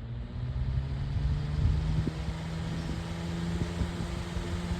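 A 12-inch metal oscillating table fan running on high speed: a steady motor hum with the rush of air from its blades. The breeze buffets the microphone.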